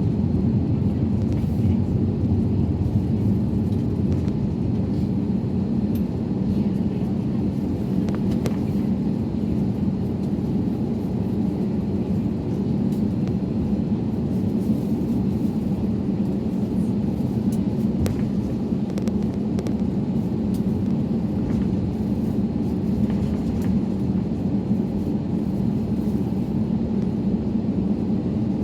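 Steady, unchanging low rumble from an Airbus A321neo airliner, with a few faint clicks.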